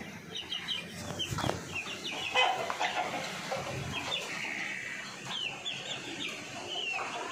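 A pen of young chickens peeping: many short high-pitched cheeps, overlapping and repeated throughout, with a couple of sharp knocks about one and a half seconds in.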